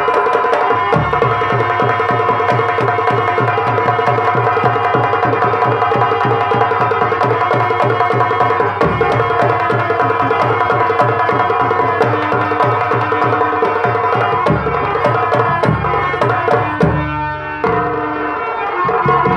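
Fast Nautanki dance music: rapid drum strokes over steadily held melody notes.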